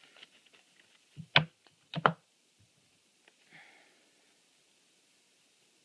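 Trading cards being handled on a table: a few light clicks, then two sharp double knocks about a second apart, as of a card stack tapped or set down, and a soft rustle.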